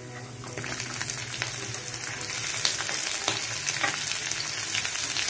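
Hot oil sizzling and crackling as chopped green chillies and ginger go into a pan of tempering with chana dal and mustard seeds. The sizzle jumps up about half a second in and builds steadily.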